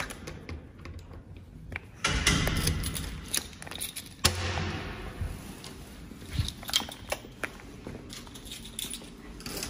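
A bunch of keys jangling and a key clicking and scraping in a door lock as the door is unlocked and opened: a run of sharp metallic clicks and rattles, loudest from about two seconds in, with a hard click just after four seconds.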